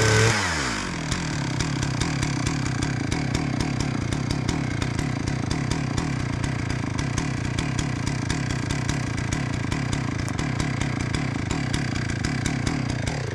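Two-stroke chainsaw coming off full throttle: its pitch drops sharply to idle in the first half-second, then it idles steadily with a fast, even patter until it is shut off suddenly at the very end.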